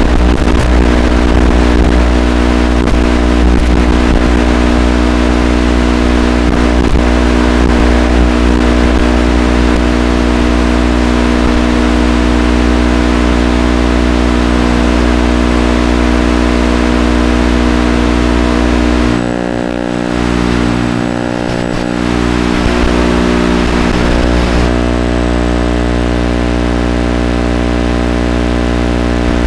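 A steady hum with many even overtones that never changes pitch, dipping briefly for a couple of seconds about two-thirds of the way through.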